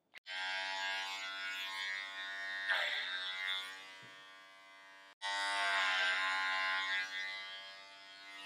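Electric hair clippers buzzing steadily. The buzz breaks off abruptly about five seconds in and starts again at once, growing fainter toward the end of each run.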